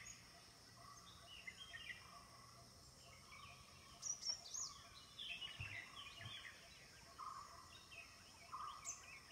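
Faint outdoor ambience with birds chirping and calling over and over, the calls busier and louder from about four seconds in, over a steady high hiss.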